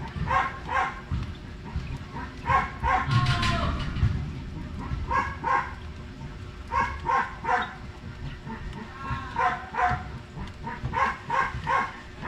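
A dog barking repeatedly, in short runs of two or three barks every second or two.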